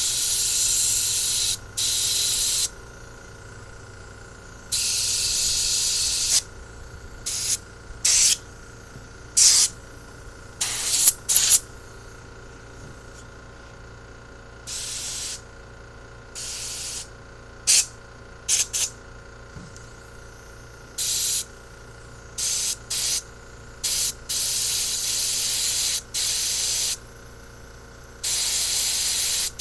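Compressed-air blow gun blasting air through the passages of a four-barrel carburetor to clear out dirt, hissing on and off in about twenty bursts, from quick blips to blasts of nearly three seconds.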